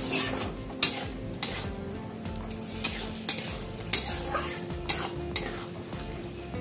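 Long metal spatula stirring a thick sauce with onions, capsicum and chicken pieces in a metal wok, the cornflour slurry just added. Repeated sharp clinks sound as the spatula strikes and scrapes the pan, over the sizzle of the hot wok.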